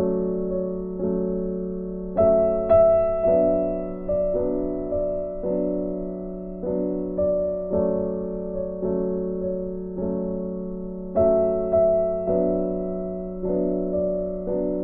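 Slow, gentle background piano music, a note or chord struck about once a second and left to ring out.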